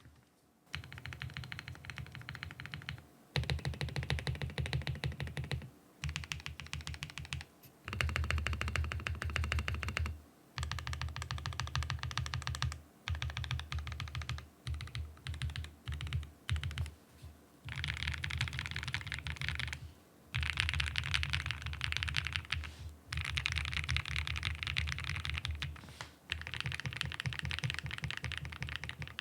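Typing on a Mode SixtyFive mechanical keyboard with a POM plate, Infinity Key Cow switches with POM stems and PBT keycaps: fast runs of keystrokes in bursts of a few seconds with short pauses between, a deep low thock under the clacks.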